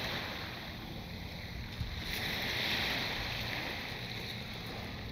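Steady wash of the sea on the shore with wind, fairly quiet, with a single small tick about two seconds in.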